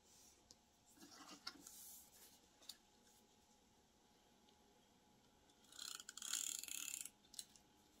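Quiet paper-handling sounds: fingertips rubbing and pressing paper word strips flat onto a collage page with a few faint ticks, then a short, louder paper rustle about six seconds in as another cut strip is picked up.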